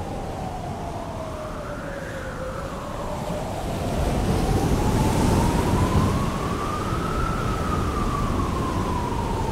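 Steady wind and engine noise from a sport-touring motorcycle at highway speed, swelling louder about four seconds in. Over it a single wailing tone rises and falls slowly, like a siren.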